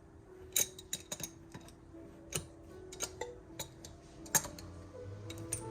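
Scattered light metallic clicks and taps as the fitting holding the old grinding wheel on a Twice As Sharp scissor sharpener is worked by hand to loosen it, with one sharper click about four and a half seconds in.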